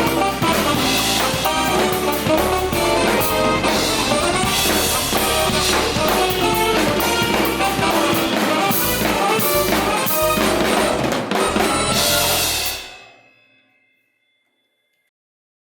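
Band music with a drum kit and pitched instruments playing at full tilt, then stopping on a final hit near the end and dying away within about a second to silence.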